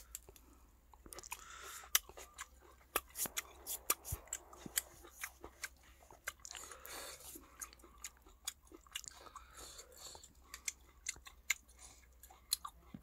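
A person chewing a mouthful of raw beef with weaver ants close to the microphone, with many sharp irregular clicks and smacks of the mouth.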